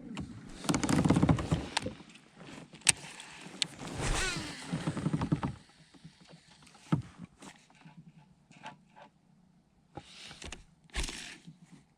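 A kayak under way on choppy water: irregular splashing and sloshing against the hull, a few sharp knocks, and gusts of wind on the microphone that come and go.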